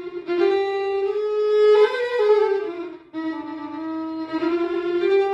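Music: a single sustained, gliding melodic line. It starts suddenly out of silence and breaks briefly about three seconds in.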